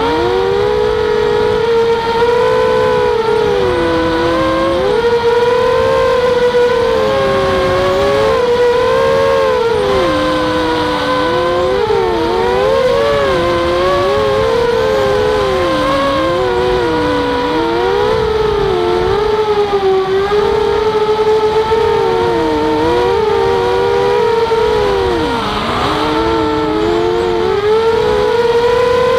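Walkera Rodeo FPV racing quadcopter's motors and propellers whining in flight. Several close pitches rise and fall together with throttle changes, dipping sharply again and again, with one deep dip about three-quarters of the way through.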